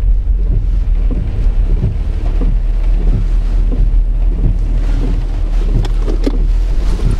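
Car interior noise while driving: a steady low rumble of engine and road.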